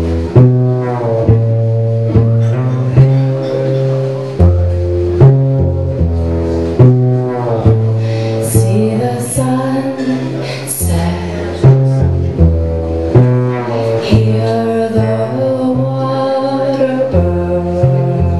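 Cello played pizzicato in a repeating low bass pattern, with a woman singing over it in the second half.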